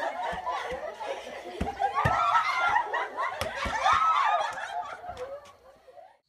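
A group of women laughing and calling out over one another, with a few short dull knocks mixed in. The voices fade about five seconds in.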